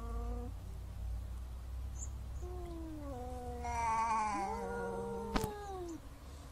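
Two cats yowling at each other in an aggressive standoff: long drawn-out howls that bend up and down in pitch. One howl trails off just after the start, another begins after a short pause, and a second, higher rising voice joins it for the last couple of seconds. A sharp click comes about five seconds in.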